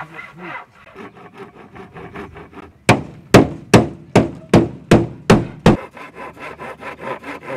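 Hammer striking wood: eight sharp blows, about two and a half a second, in the middle, with quieter quick strokes before and after.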